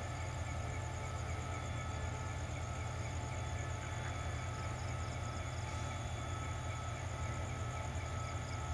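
QSY-class diesel-electric locomotive idling steadily at a distance, a low, even hum. Crickets chirp in short pulsed bursts over it.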